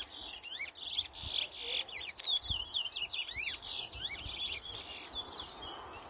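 Towa-towa seed-finches singing against each other in a song contest: a fast, dense run of sharp whistled notes that slide down and up, mixed with buzzy trills, thinning out near the end.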